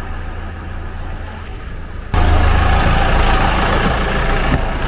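Shuttle minibus engine idling with a steady low rumble, suddenly much louder about two seconds in, close beside the bus's open door.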